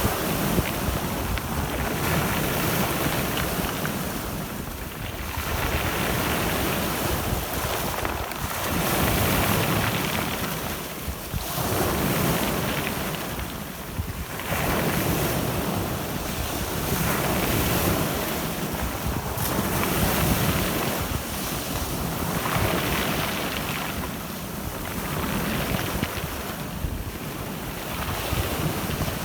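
Black Sea surf: waves breaking and washing up the shore, swelling and ebbing about every three seconds, with wind gusting over the microphone.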